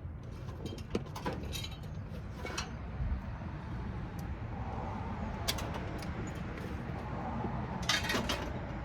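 Scrap copper wire being handled and its connector ends snipped off with cutters: a few sharp clicks and metal clinks, with the busiest cluster near the end, over a steady low rumble.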